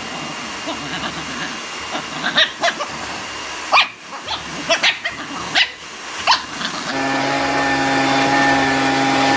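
A dog barking, a string of short barks. About seven seconds in, a steady motor hum starts and keeps going.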